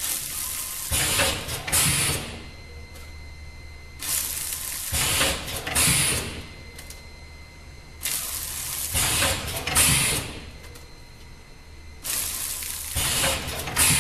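Automatic doypack packing machine with a combination weigher running its packing cycle: about every four seconds a burst of clacking and hissing as the pouch is filled and sealed, with a low steady hum between cycles. Four cycles are heard.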